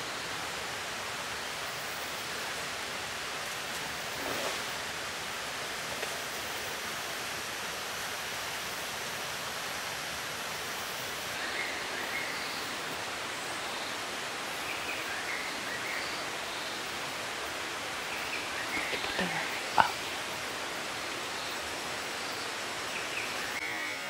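Steady, even hiss of forest ambience, with a few faint short calls scattered through it and one brief sharp sound about twenty seconds in.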